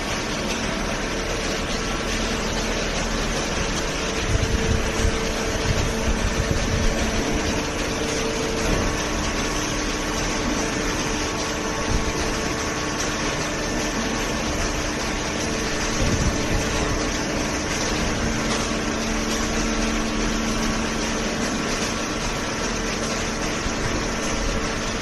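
Hydraulic paper baler running: a steady mechanical drone with a constant hum, its pump and motor under way. It gets louder and rougher about four to seven seconds in and again around sixteen seconds.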